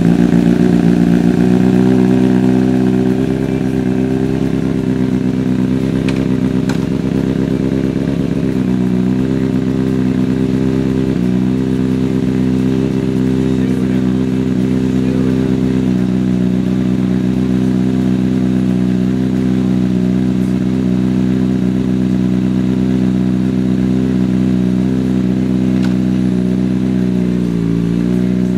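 2022 Kawasaki Ninja ZX-6R's inline-four engine idling steadily. It is louder for the first couple of seconds, and its pitch dips briefly a few times as the clutch is let in and out in first gear to find where it picks up.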